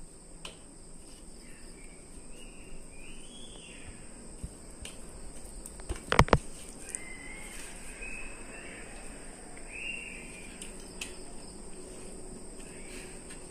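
Hands eating from steel plates, with a sharp double clink of steel tableware about six seconds in. Behind it runs a steady high whine, and a few short chirping calls come and go.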